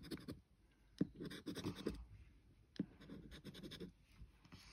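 A coin-style scratcher rubbing off the latex on a Red Hot Bingo paper scratchcard, in three short runs of quick scraping strokes. The second and third runs each begin with a sharp tap.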